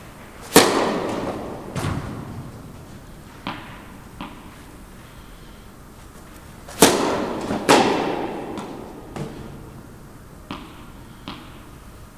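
Tennis balls struck hard with a racket during serve practice: a loud hit about half a second in and two more past the middle, each ringing out in the echo of the large indoor hall, with quieter knocks of balls bouncing in between.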